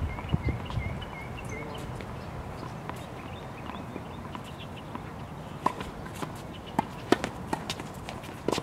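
Tennis balls knocking on a hard court and off rackets: scattered sharp knocks, several close together in the second half.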